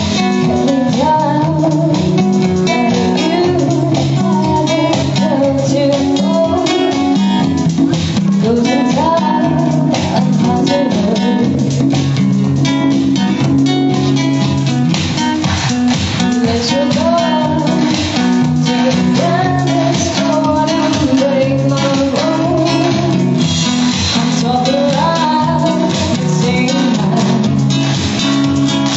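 Guitars playing together: held chords and a bass line underneath, with a melody on top that slides up and down in pitch.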